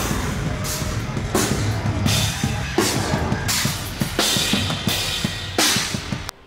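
Heavy band playing live at concert volume: fast kick drum under crash cymbal hits about every 0.7 seconds. The music cuts off abruptly near the end.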